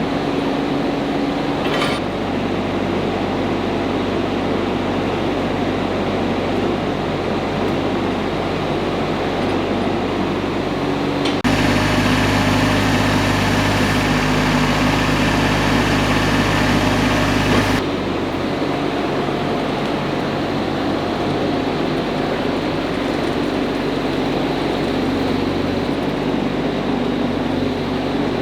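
Diesel engine of a RIPPA R22-3 PRO mini excavator running steadily. It becomes louder and rougher for about six seconds midway, starting and stopping abruptly, then returns to the steady level.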